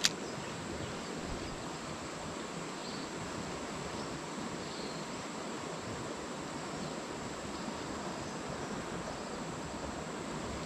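Steady rush of river water with an insect's continuous high-pitched drone over it, and a single sharp click at the very start.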